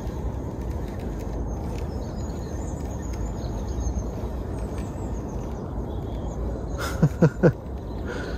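Steady low rumble with faint bird chirps while a lure is reeled in on a fishing reel. Near the end, three short, loud tones in quick succession, each falling in pitch.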